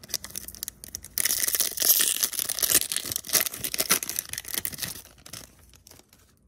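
Foil wrapper of a Yu-Gi-Oh booster pack being torn open by hand and crinkling. It is loudest from about a second in to about four seconds, then dies away.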